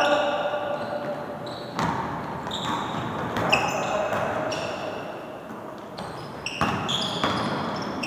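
Basketball being dribbled and passed on a wooden gym floor, with a few sharp bounces and many short, high sneaker squeaks as players move.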